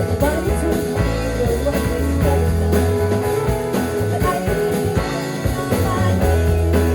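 Live rock band playing: guitar lines over a steady drum beat and sustained bass notes.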